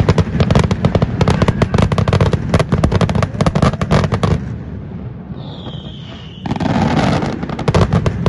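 Fireworks barrage: rapid salvo of bangs and crackles for about four seconds, easing into a rumble with a short falling whistle, then another loud crackling burst near the end.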